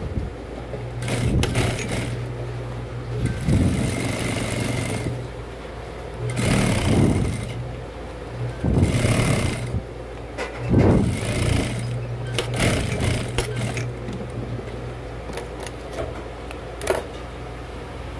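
Industrial single-needle lockstitch sewing machine stitching a bag handle in short bursts of one to three seconds, starting and stopping about five times. Its motor hum comes and goes with each run, and the stitching rattles on top of it. Near the end it is quieter, with only a few clicks.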